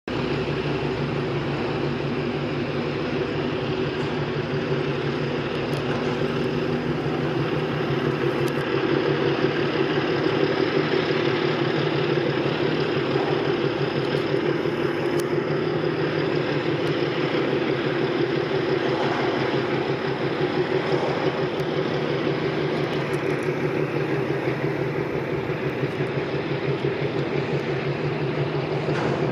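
Tugboat's diesel engine running steadily with a low, even throb, over a hiss of water.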